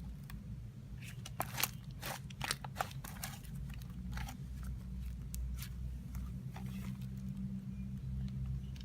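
Butter slime being squished and pressed by hand, giving scattered soft clicks and crackles over a steady low hum.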